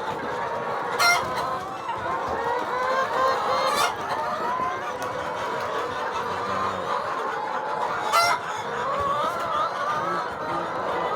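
A flock of chickens clucking in a continuous overlapping chatter, with a few short, sharper, louder calls standing out.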